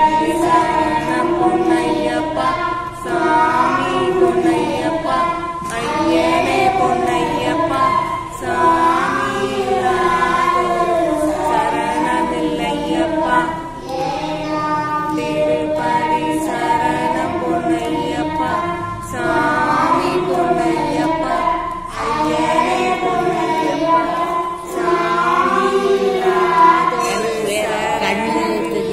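A woman and a boy singing a song together into a microphone, without instruments.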